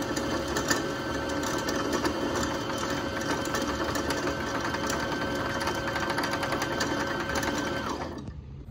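Brother electric sewing machine stitching at speed: a fast, even needle rattle over a steady motor hum. It slows and stops near the end.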